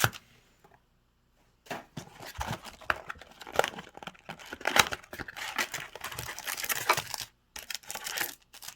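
Cardboard and plastic packaging being torn open and crinkled by hand: irregular rustling and tearing that starts about a second and a half in, after a short quiet gap, and keeps on to the end.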